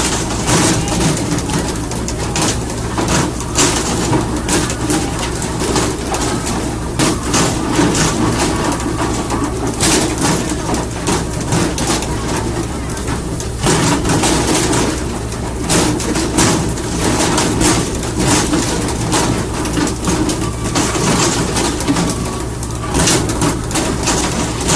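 Fishing boat's engine running with a steady low drone, under repeated sharp slaps and thuds as tuna are flung out of the sea onto the deck.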